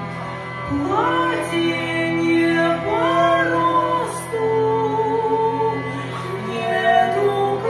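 A woman singing a slow melody, her notes bending up and down, over the steady drone of a hurdy-gurdy.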